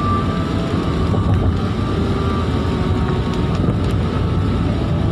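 Steady noise of a car driving on a wet road in heavy rain, heard from inside the cabin: low engine and tyre rumble with rain on the car.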